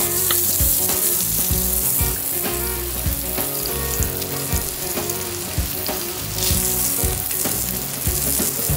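Food frying and sizzling in a hot pan, a steady crackling hiss, with the instrumental backing of a song playing over it.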